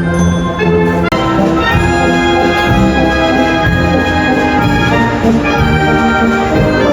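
Loud brass-heavy ensemble music playing, full chords of held notes under a melody; it drops out for an instant about a second in.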